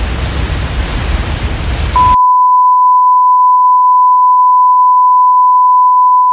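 Loud static noise with a low rumble, cutting off abruptly about two seconds in to a steady, high-pitched test-tone beep, the standard tone that accompanies broadcast colour bars.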